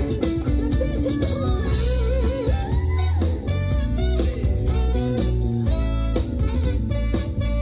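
Live band playing with no vocals: a guitar lead over bass and a drum kit, in a Latin style.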